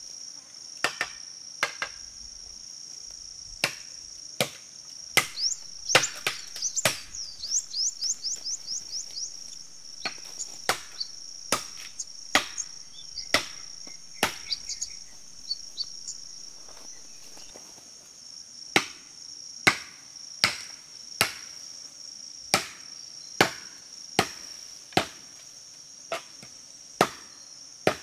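A blade chopping into bamboo at the base of a stalk: sharp strikes, irregular at first, then a steady run of about a dozen blows, one every 0.8 s or so, in the second half. A steady high-pitched insect drone runs underneath.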